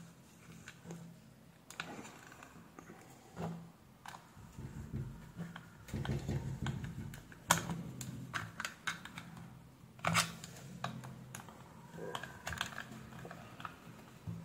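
Irregular small clicks and taps of hands and a thin metal tool handling the opened plastic housing and diaphragm assembly of an aquarium air pump, busiest in the middle. A faint low hum comes and goes underneath.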